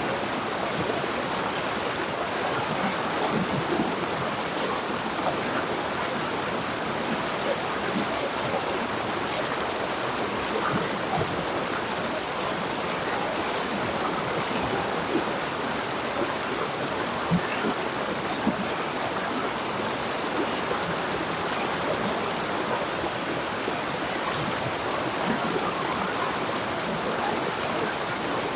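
River water flowing and babbling over rocks, a steady rush with small splashes throughout.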